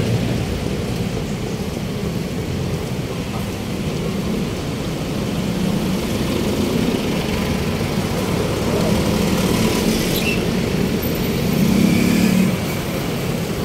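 Steady city road traffic: engines and tyres of cars and buses passing, with one vehicle passing louder near the end.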